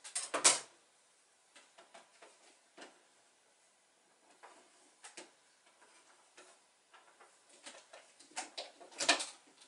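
Handling noises at a sewing machine: scattered light clicks and rustles as sail fabric is positioned and adjusted, with louder rustling right at the start and again about nine seconds in.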